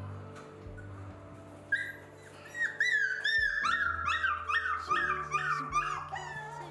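Petite Bernedoodle puppy whining in a quick string of high-pitched cries, about three a second, starting about two seconds in.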